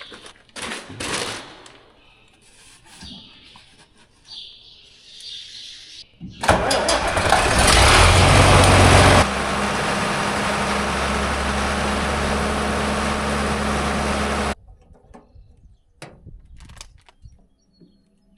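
An engine cranks and starts with a loud burst about six seconds in, drops to a steady run for about five seconds, then cuts off abruptly. Faint bird chirps come before it.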